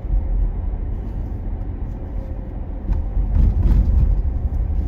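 Low, steady rumble of road and engine noise heard from inside a moving car's cabin, growing louder about three seconds in.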